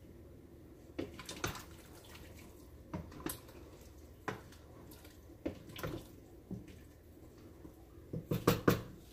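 Irregular knocks and clatter of cooking at a pot of chicken soup, with some water sounds; a quick run of knocks near the end is the loudest.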